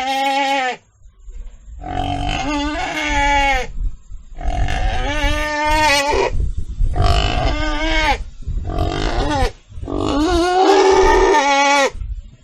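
Pig squealing: a series of about six long, pitched squeals, each a second or two long, with short pauses between them.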